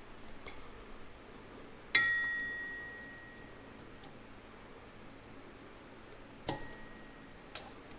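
A sharp metallic clink about two seconds in that rings on with a clear high tone for over a second, then a second, softer clink near the end with the same ring: a steel part or tool being struck or set down while a PTO snap ring is worked out.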